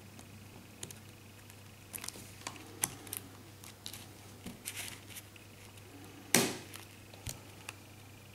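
Small sharp plastic clicks and snaps as a Huawei Y550 smartphone's frame is pried apart from its screen assembly with a small metal tool, the frame's clips releasing one by one. The loudest is a longer crackling snap about six seconds in.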